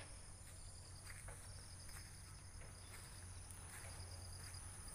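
Faint outdoor ambience: insects chirping in short pulsed trills over a steady high-pitched buzz and a low hum.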